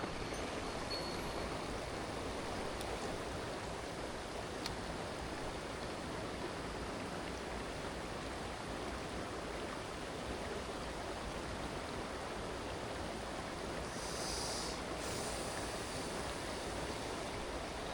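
Mountain headwater stream rushing steadily, an even wash of flowing water.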